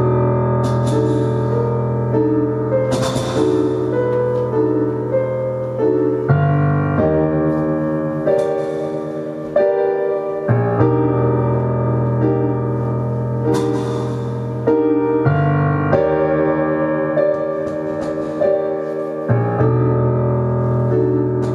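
Live ambient keyboard music: repeating keyboard notes over a sustained low drone that shifts to a new pitch every four seconds or so, with a few brief hissing swells now and then.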